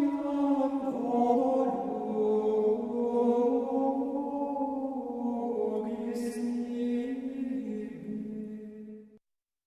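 Sung religious chant: a slow melody of long held notes that glide smoothly from one pitch to the next. It cuts off abruptly shortly before the end.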